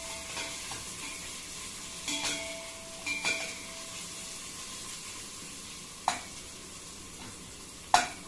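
Sliced onions sizzling as they fry in hot oil in a stainless steel pot, with a spoon stirring them and clinking against the pot a few times.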